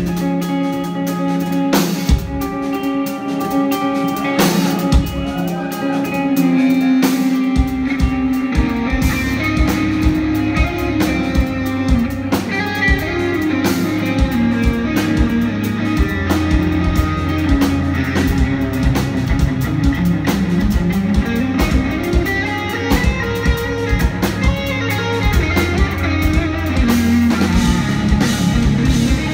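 Live instrumental progressive metal from two eight-string electric guitars and a drum kit. A picked guitar passage plays alone at first; the drums and the low guitar parts come in about seven seconds in and run on as a dense, heavy groove.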